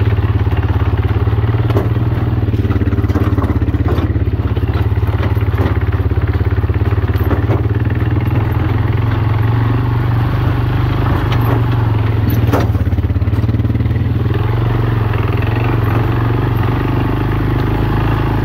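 Honda FourTrax 250 ATV's single-cylinder four-stroke engine running at low speed as it crawls over rough, brushy ground, with a few sharp knocks and scrapes. The engine note shifts about two-thirds of the way through.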